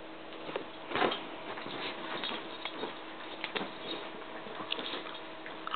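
A dog mouthing and tussling with a bone-shaped squeaky toy on bedding: irregular scuffling, rustling and chewing noises, loudest about a second in.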